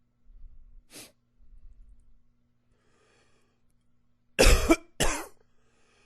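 A man coughing: two loud coughs in quick succession about four seconds in.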